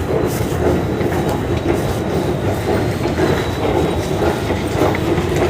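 Jubilee line Underground train running on the rails: a steady, loud rumble of wheels and track with a thin, steady high whine above it.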